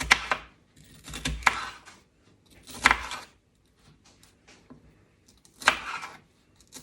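Kitchen knife chopping a bell pepper on a cutting board: about five separate sharp knocks, unevenly spaced.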